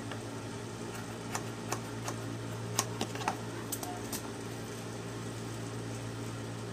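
Scissors snipping through cloth: a handful of short, sharp clicks in the first four seconds, over a steady low hum.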